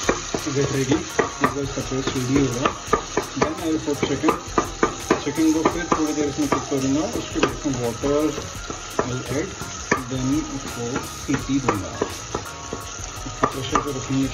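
Spatula stirring and scraping chopped onions, tomatoes and spices frying in oil in a metal pressure cooker pot. Many quick scrapes and clicks against the pot sound over a steady sizzle.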